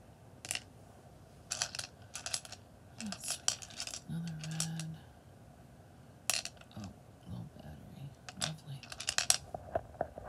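Wet, polished beach stones clicking and clacking against one another as they are picked up and shuffled in a pile, in several quick clusters of knocks.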